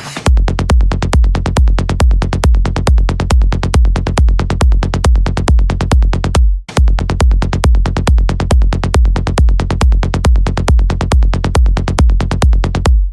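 Electronic dance music with a steady drum-machine beat, dropping out briefly about six and a half seconds in.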